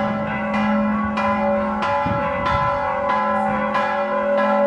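Church bells ringing in a steady peal, struck about one and a half times a second, their tones humming on between strikes. The bells are rung at noon to welcome the souls of the dead.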